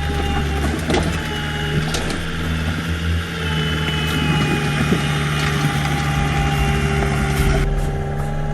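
Excavator's diesel engine running steadily, with a high whine over it and a few sharp metallic knocks.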